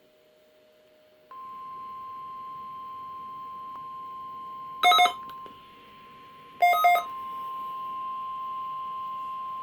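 NOAA Weather Radio warning alarm tone, a steady single-pitch tone heard through a weather radio receiver during the required weekly test. It starts about a second in and holds steady, broken twice by short, loud beeping bursts about five and seven seconds in.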